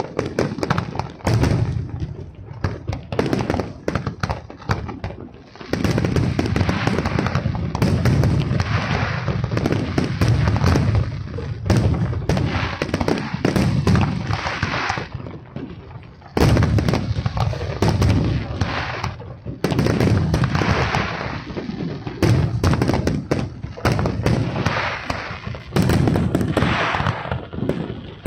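Aerial fireworks shells bursting in a dense volley of many overlapping bangs. The bangs are sparser for the first few seconds and pause briefly about halfway.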